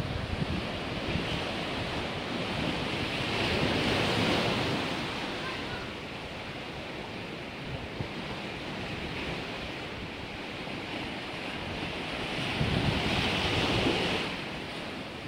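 Sea waves washing onto the shore, building up twice, once about four seconds in and again near the end, with wind buffeting the microphone.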